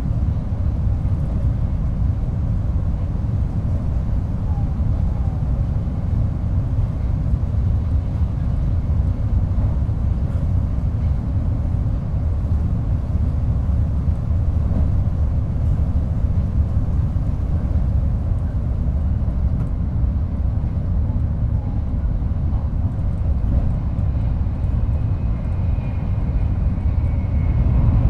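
Shinkansen train running, heard from the vestibule deck between cars: a steady low rumble from the running gear and track, growing a little louder near the end.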